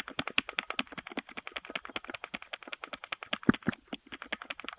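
Rapid tapping at a front door, about ten sharp taps a second and unbroken, with a few heavier knocks about three and a half seconds in.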